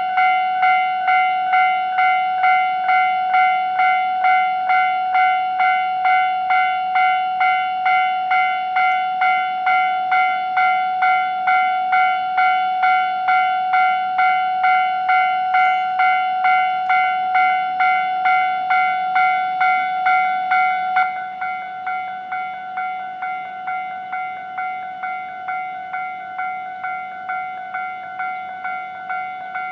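Japanese railway level crossing warning bell ringing its steady "kan-kan" clang, about two strikes a second. About two-thirds of the way through it drops noticeably in volume but keeps ringing.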